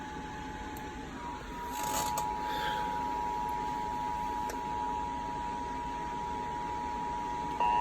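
A faint steady tone with a few soft clicks, then near the end the Emergency Alert System attention tone starts abruptly, much louder: two steady tones sounded together.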